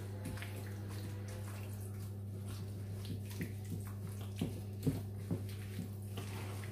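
Gloved hands mixing chicken pieces in a thick yoghurt marinade in a mixing bowl: soft wet squelches and light knocks, three of them louder a little past the middle, over a steady low hum.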